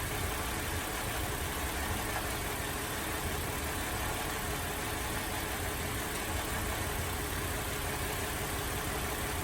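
Holden Alloytec V6 idling roughly with an uneven low throb, misfiring on a cylinder whose coil pack, number 5, has failed.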